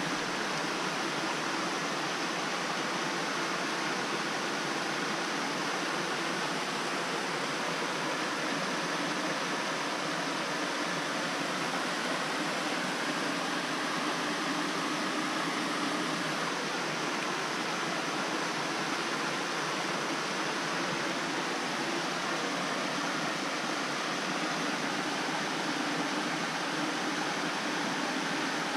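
Steady rush of a small brook waterfall spilling over rock into a pool.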